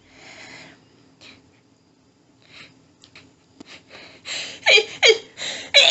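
A woman's sneezing fit: a breath near the start, then short hitching breaths that build up to a rapid run of loud, sharp sneezes about four and a half seconds in.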